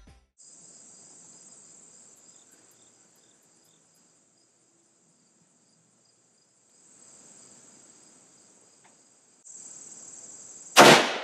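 Steady high-pitched insect buzzing that drops out for a few seconds in the middle. Near the end comes a single loud rifle shot from a Remington 700 in .308: a sharp crack with a short ringing tail.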